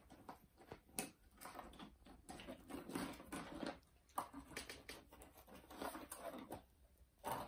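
A Pomeranian rummaging in a cardboard box of chew sticks and balls: faint, irregular rustling and light clicks of sticks shifting against the cardboard, with a louder bump near the end.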